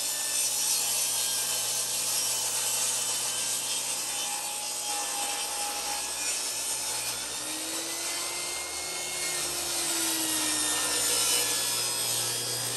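Table saw ripping a long wooden board lengthwise: a steady, continuous cutting noise as the board is fed along the fence through the blade.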